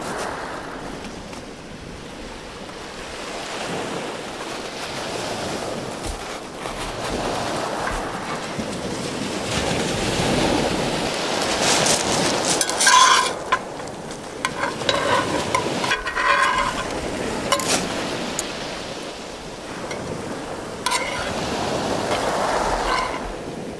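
Waves washing over a shingle beach, swelling and fading every few seconds, with a few sharp metallic clicks and short ringing clinks of tongs against a cast-iron pan.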